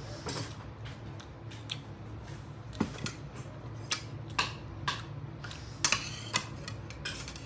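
A metal spoon and fork clinking and scraping against a ceramic bowl while noodles are eaten: light, irregular clicks, loudest about six seconds in.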